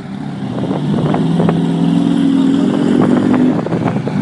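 Off-road race car engine running at a steady raised speed. It grows louder about a second in, with scattered sharp knocks and clicks over it.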